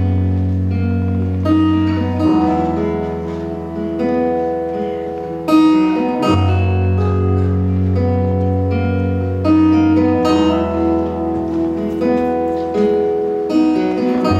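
A live folk band playing an instrumental intro: guitars and keyboard over a held low note that drops out about two seconds in and comes back about six seconds in.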